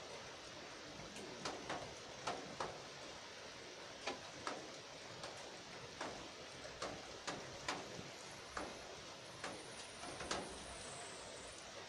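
Steady rain hiss with irregular sharp taps of drops striking a hard surface, about one or two a second.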